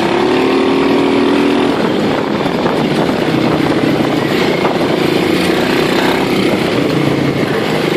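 Small motor vehicle engine running steadily. Its pitch rises slightly in the first second or two, then holds.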